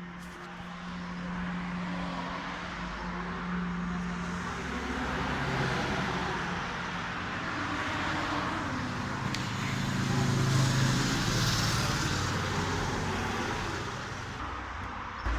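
Motor vehicle engine running with tyre and road noise. The engine's pitch drops about five seconds in, and the road noise swells around ten to twelve seconds in before easing off.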